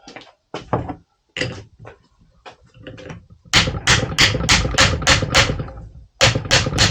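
Hammer blows tapping a new CV axle's splined shaft into place on a Range Rover L322. There are a few single taps, then from about three and a half seconds in a fast, even run of loud blows at about five a second, a brief pause, and another run near the end.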